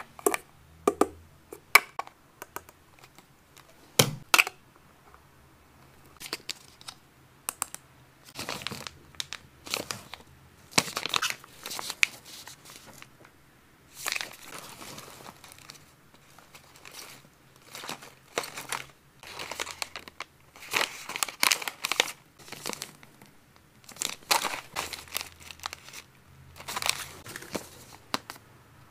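Plastic snack packaging crinkling and tearing as it is handled, in irregular bursts of rustling with sharp clicks and taps between quiet gaps.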